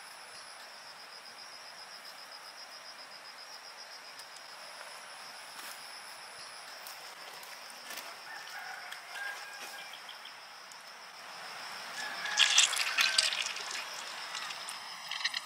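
A high, steady insect trill runs throughout, with short bird calls now and then. About twelve seconds in comes a loud burst of crackling handling noise as hands rub and squeeze live snails.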